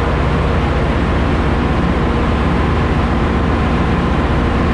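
Ship's engine-room machinery running steadily: a loud, even hum with a few steady low tones underneath, unchanging throughout.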